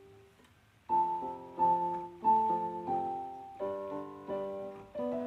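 Background music: a piano melody. One faint held note fades over the first second, then notes and chords are struck about every two-thirds of a second.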